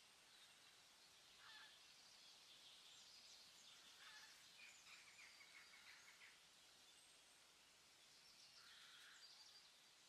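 Faint birdsong over a quiet background hiss: small birds chirping, with a quick trill about four to six seconds in and more chirps near the end.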